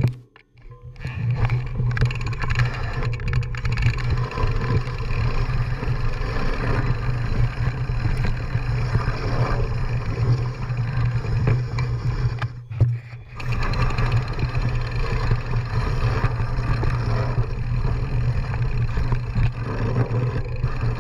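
Mountain bike riding down a dirt forest trail: a steady low rumble of wind on the microphone and tyres on the ground, with the rattle and clatter of the bike over the bumps. The sound drops out briefly near the start and again about two-thirds of the way through.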